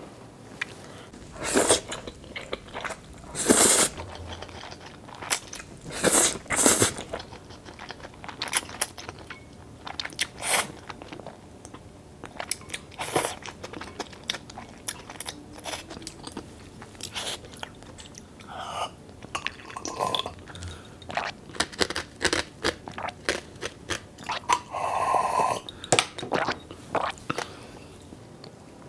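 A person eating close to the microphone: crisp crunching bites and chewing, with several louder crunches in the first few seconds.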